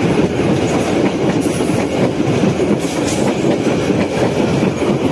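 Economy passenger coaches rolling past close by, a steady loud rumble and clatter of steel wheels on the rails.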